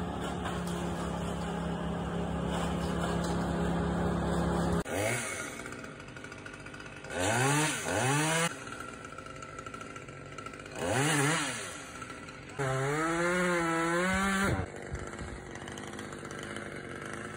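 Gas chainsaw running steadily at high speed for about five seconds, then dropping back and revved up four times in short bursts, the pitch rising and falling each time. The last burst is held for about two seconds with the pitch wavering.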